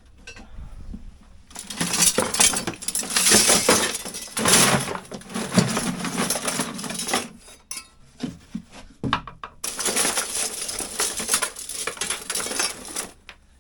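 Scrap copper pieces, cut tubing, radiator sections and wire windings, clattering and clinking as they are tipped into a metal-sorting box, in two long spells of pouring with a short pause between.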